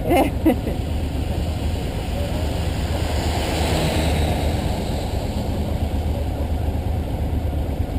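Motorcycle engine idling, a steady low hum under a wash of wind and wet-road noise; a rush of higher noise swells and fades about halfway through.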